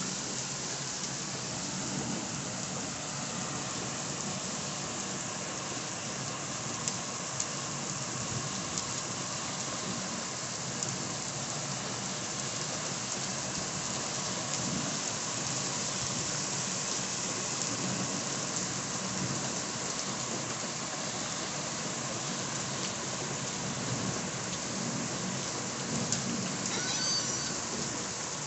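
Heavy rain pouring steadily onto pavement and roofs in a downpour, with low rumbles of thunder now and then.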